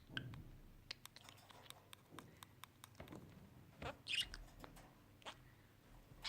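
Budgerigar making soft scattered clicks and short high chirps, with a louder chirp about four seconds in.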